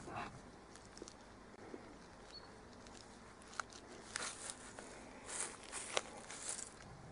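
Faint rustling and crackling of dry grass and pine needles as a person moves on them, with a few sharp clicks, and a cluster of louder rustles in the second half.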